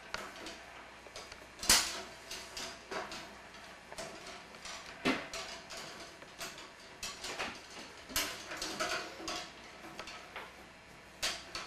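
Copper tubing being bent into a coil around a metal paint can: scattered clinks, taps and light scraping of the tube against the can, with sharper clicks about two, five and eight seconds in.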